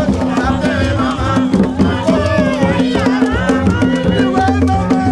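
Music with hand drums and people singing over a steady repeating beat.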